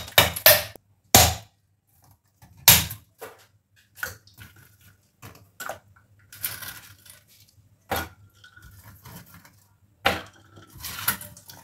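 Pieces of ice handled and dropped into a glass jug of lemon sharbat: a series of separate sharp knocks and clinks a second or more apart, with a few short rustling, crunching stretches between them.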